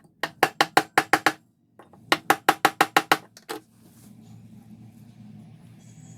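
Canon LBP 2900 laser printer's gear train clicking rapidly, about seven sharp clicks a second, in two bursts with a short pause between. It then runs on with a low steady hum from about four seconds in. The clicking is the gear noise fault that the printer has.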